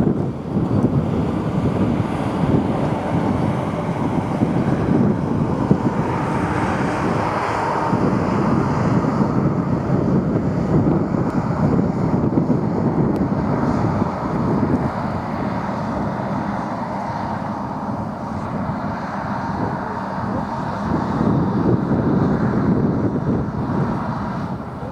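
Aircraft engine noise droning steadily under heavy wind rumble on the microphone, swelling about six to eight seconds in as the aircraft comes closer.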